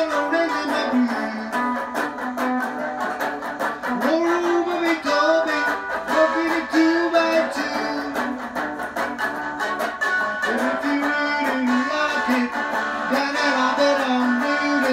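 Hollow-body electric guitar playing a rock-and-roll instrumental break over a steady rhythm, with notes that bend up and down.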